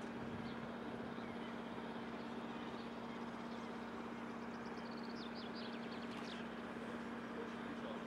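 Lakeside outdoor ambience: a steady low hum over an even background noise, with a small bird giving a quick run of short, high chirps about five seconds in.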